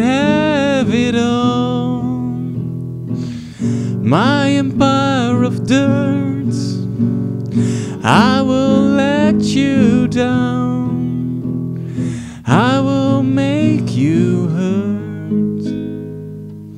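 Nylon-string classical guitar strummed while a man sings four long phrases over it, each swooping up at its start and then falling away. Recorded through cheap dynamic microphones: an AKAI ADM-25 on the guitar and a DAP PDM-25 on the voice.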